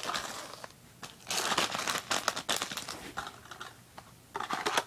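Plastic fishing-lure packages crinkling in irregular bursts as they are handled and laid down.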